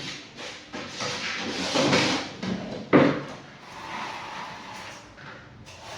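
Detergent containers and chemicals being handled: irregular knocks and rustling, with one sharper knock about three seconds in.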